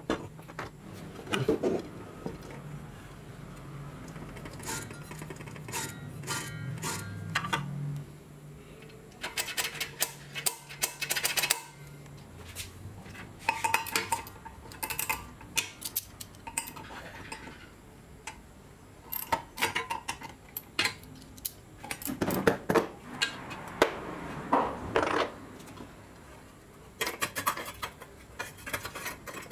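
Scattered metal clinks and clanks as a spanner works the arbor nut of an old, rusty Makita circular saw and the steel blade and guard are handled while the blade is taken off.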